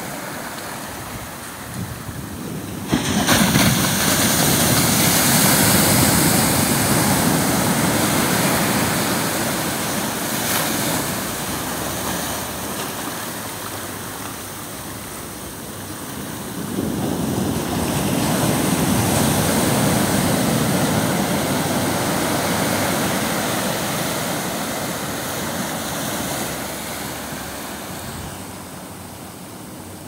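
Ocean surf washing up a sandy beach around rocks, a steady rush of water. It swells sharply about three seconds in and again a little past halfway, easing off near the end.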